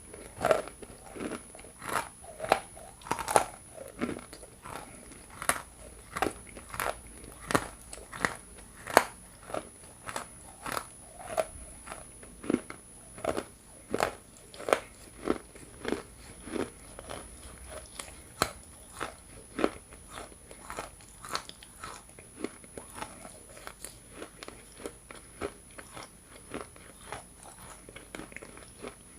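Hard pieces of dry edible Ural clay bitten and chewed close to the microphone: a steady run of sharp crunches, about one to two a second, growing fainter and sparser near the end.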